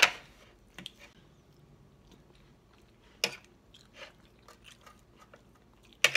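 Fork clicking and scraping on a plate as pieces of chicken are cut, four sharp clicks spread out with the loudest at the start, and small ticks of chewing in between.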